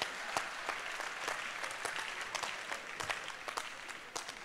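Audience applauding: many hands clapping at once, dying down toward the end.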